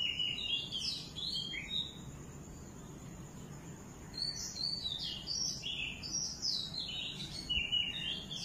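Small birds chirping, a rapid run of short, sliding high calls in two spells: one over the first two seconds and another from about four seconds in.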